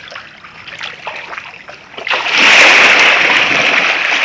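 Light splashing and sloshing of pool water, then about halfway through a sudden big splash that turns into loud churning water to the end.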